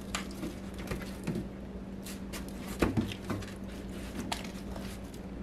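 Hands handling raw, seasoned Cornish hens in a disposable aluminium foil pan: soft squishes of the wet skin and scattered light clicks and crinkles of the foil, a little louder about three seconds in, over a steady low hum.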